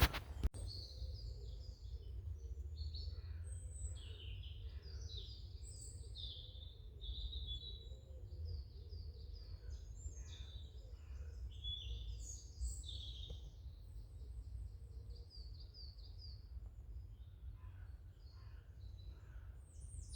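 Woodland birds singing: a busy mix of short high chirps and warbled phrases from several birds, over a low steady rumble.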